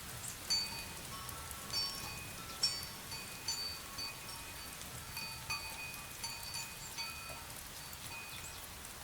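Wind chime ringing in irregular strikes, roughly one every second, each sounding several clear tones at once, over the steady hiss of light drizzling rain.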